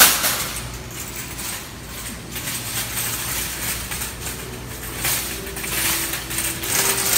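Metal shopping cart rattling and clattering as it is pushed over a tiled floor, with a sharp bump right at the start and a steady store background hum.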